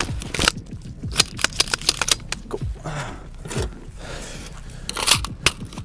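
Sharp metallic clicks, scrapes and rattles of a mud-caked HK MR556A1 rifle being handled and its action worked, in an irregular run with a quick cluster about a second in and two louder clicks near the end.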